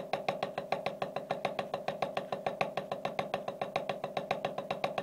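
Wooden drumsticks playing a fast double stroke roll on a drum practice pad: an even, unbroken stream of sharp taps, each with a short dull ring, two strokes per hand played bounce-then-down.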